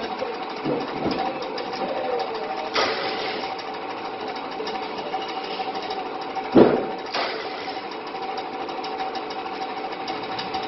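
Corrugated box production machinery running steadily, a constant hum with a held tone and fast, even ticking. Several loud thumps cut in, the loudest about six and a half seconds in.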